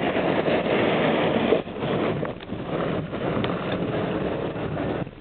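Wind buffeting the microphone over the rumble of a moving car, a gusty noise that rises and falls.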